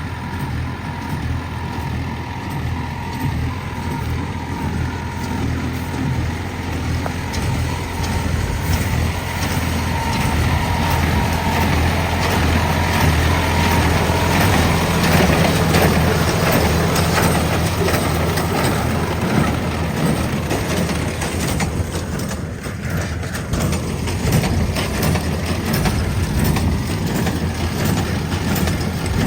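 Tractor engine running steadily while powering a square baler that packs paddy straw, the baler's working noise spread over the engine's hum.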